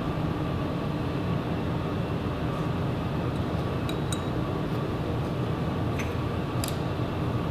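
Steady hum of the lab's ventilation, with a few faint clicks of bench equipment being handled, about four of them, spread through the second half.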